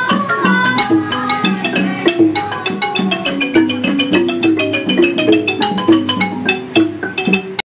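Thai classical music accompanying the dance: a wooden xylophone (ranat) playing fast runs of struck notes over a repeating lower percussion pattern, cutting off abruptly near the end.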